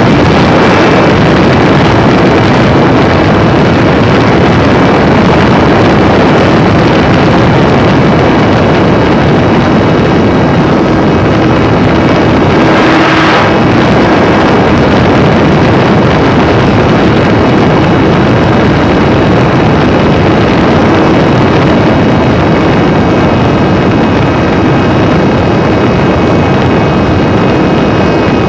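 Steady, loud rush of wind over an onboard camera's microphone on a flying radio-controlled fighter-jet model, with the plane's motor running as a faint steady whine underneath. The sound briefly rises about halfway through.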